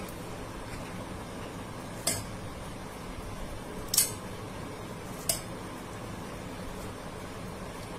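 A kitchen knife clinks three times against a stainless steel blender jar while dragon fruit is sliced into it, over steady background noise.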